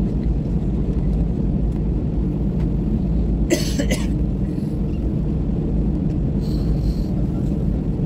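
Cabin noise of an airliner rolling along the ground: a steady low rumble of the jet engines and wheels. A short sharp sound cuts through it about three and a half seconds in, with a fainter hiss near seven seconds.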